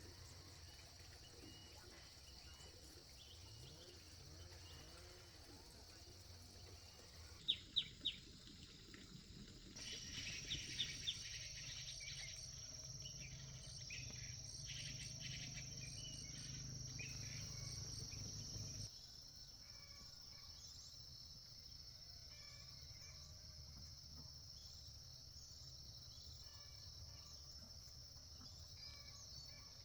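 Faint outdoor ambience: insects trilling steadily, with a few short, sharp bird chirps about a third of the way in. The background level changes abruptly several times.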